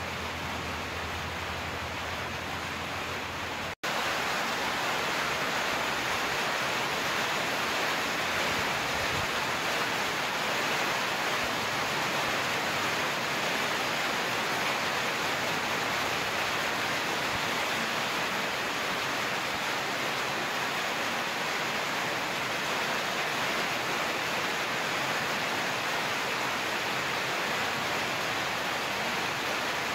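Steady hiss of rain falling. It cuts out for an instant just before four seconds in and resumes a little louder.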